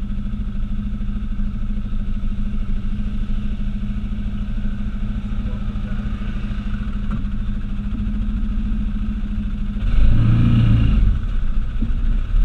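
Off-road vehicle engine running steadily at cruising speed, then getting louder about ten seconds in as it revs up.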